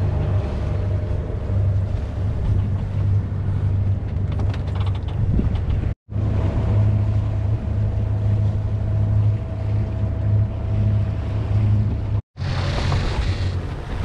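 Sailing yacht's inboard engine running steadily as a low hum while the boat motors in near-calm. The sound breaks off for a moment twice, and wind hisses on the microphone near the end.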